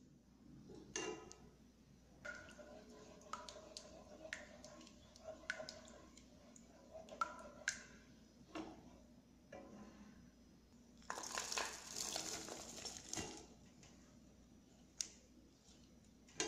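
Silicone spatula stirring cream in a metal saucepan, with scattered light taps and scrapes against the pan that ring briefly. About eleven seconds in comes a two-second stretch of dense rustling and clicking.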